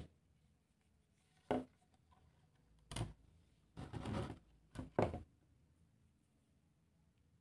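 PVC pipe pieces being set down and shifted on a wooden tabletop: several short hollow knocks with a brief slide, stopping a little after five seconds in.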